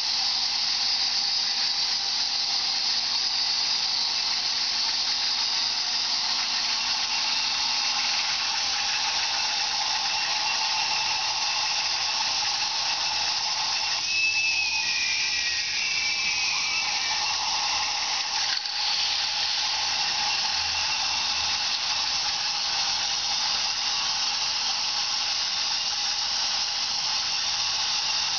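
K'nex Screamin' Serpent roller coaster's battery-powered chain lift running, a steady whirring hiss with the plastic cars running along the track, and a brief high squeal about halfway through.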